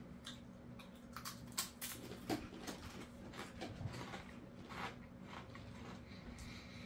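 Faint crunching of ruffled potato chips being chewed: a scattering of short, crisp crackles over a low steady hum.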